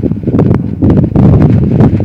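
Wind buffeting the microphone in open desert: a loud, gusty low rumble that eases a little in the first second and then swells again.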